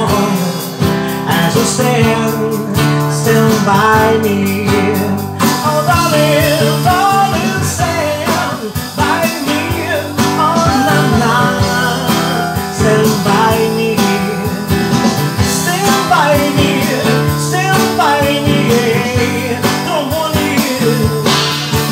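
Live band music: an acoustic guitar strummed along with a drum kit, and a man singing into the microphone.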